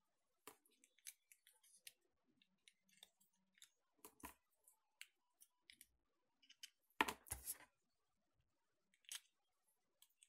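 Small plastic clicks and handling rattles as a compact LED bike tail light and its USB charging cable are turned over in the hands, with a louder clatter about seven seconds in.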